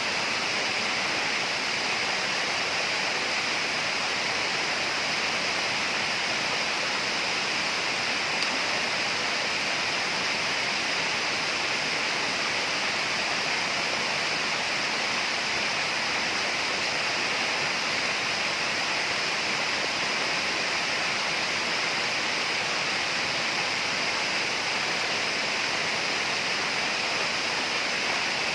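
Tropical rainforest ambience: a steady rush of flowing water.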